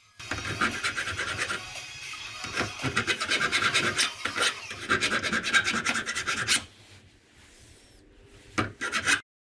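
Hand file rasping back and forth over the steel hinge of a folding shovel, filing away metal that had bent and burred at the joint. The quick repeated strokes run for about six seconds, pause, then two more strokes come just before the sound cuts off.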